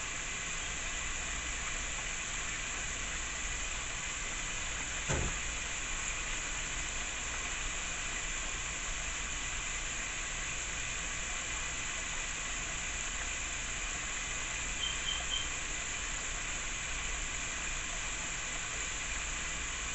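Steady sizzling hiss from cooking on the stove, with a single knock about five seconds in.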